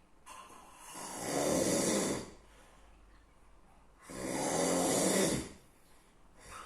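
A sleeping person snoring: two long, rough snores about four seconds apart, with a short, softer breath near the end.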